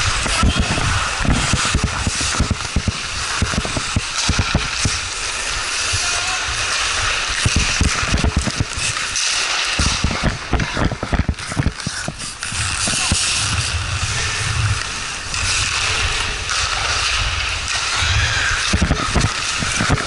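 Ice skate blades scraping and carving on the ice, with wind buffeting a player-worn camera's microphone in low rumbling thumps as he skates.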